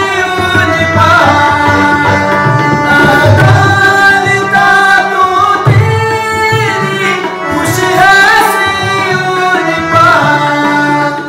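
A man singing a Punjabi psalm (zabur), accompanied by tabla played in a steady rhythm.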